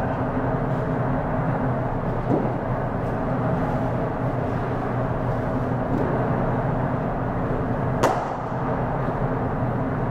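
A single sharp crack of a cricket bat striking the ball, about eight seconds in, over a steady background hum.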